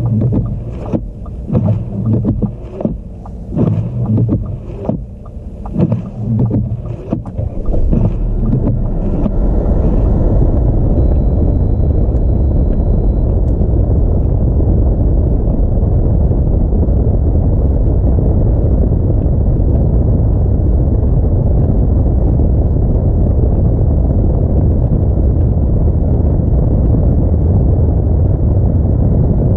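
Road and wind noise of an Audi A4 driving through a snowstorm: uneven, gusty buffeting for the first several seconds, then a steady, loud low rumble from about eight seconds in.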